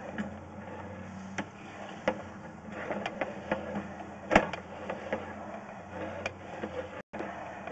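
Sewer inspection camera's push rod being fed into a PVC sewer line: irregular clicks and knocks over a steady low hum, with one sharper knock about four seconds in.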